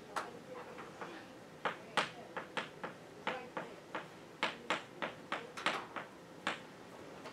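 Chalk writing on a blackboard: an irregular run of sharp taps and short scratches as each symbol is put down.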